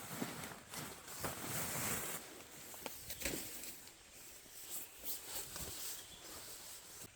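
Rustling of fabric and gear with scattered light knocks and clicks as a hammock is being set up by hand, thicker rustling about a second in.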